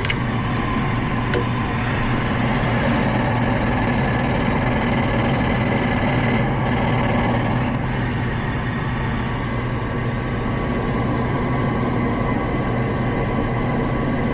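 Gas furnace draft inducer motor running with a steady hum and whine. It is pulling enough draft to close the pressure switch, yet the switch stays open, the sign of a bad pressure switch.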